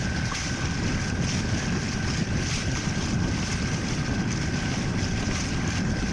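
Fishing boat's engine running steadily under way, with wind buffeting the microphone and water rushing past the hull.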